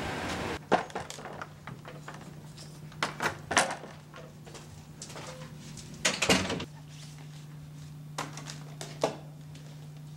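A door being opened and shut: latch clicks and knocks in a small room, loudest about six seconds in, over a steady low hum.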